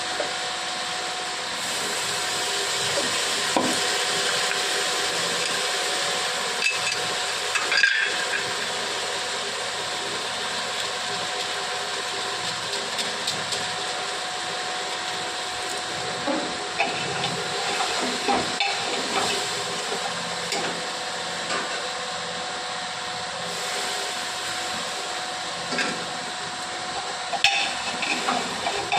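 Cauliflower and onions frying in a pan: a steady sizzle, with scattered knocks and scrapes of the stirring spoon against the pan, one sharper knock about eight seconds in.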